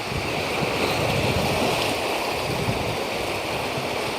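Sea waves washing on the shore, a steady rushing wash of surf.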